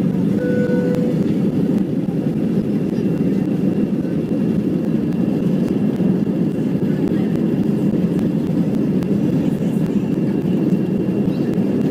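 Steady, loud rumble of an airliner's engines and airflow heard from inside the passenger cabin, with a brief single tone about half a second in.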